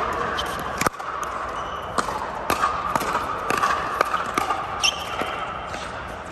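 Pickleball rally: paddles striking the hard plastic ball and the ball bouncing on the court, a string of sharp pocks, roughly one or two a second.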